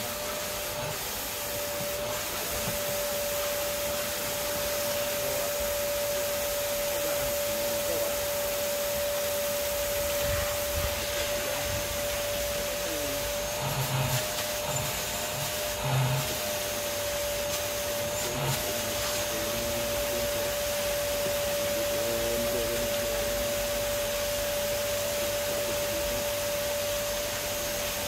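Vacuum cleaner running steadily with a constant high whine, cleaning a car's interior, with the nozzle knocking against the inside of the car a few times about halfway through.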